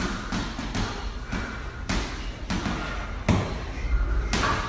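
Punches landing on a heavy punching bag: a train of irregular thuds, roughly two a second.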